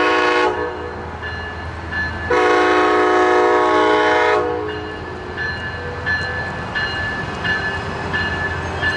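Train horn sounding in blasts as an Amtrak Pacific Surfliner pulls out: a short blast ending about half a second in, a long blast of about two seconds, and another starting near the end. Between the blasts a bell dings repeatedly over a steady low rumble of the diesel locomotive.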